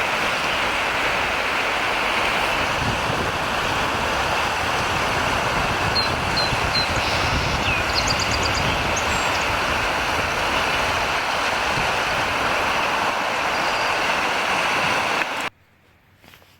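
River running high and fast after heavy rain, a steady loud rush of water, with a few short high chirps about halfway through. It cuts off suddenly near the end.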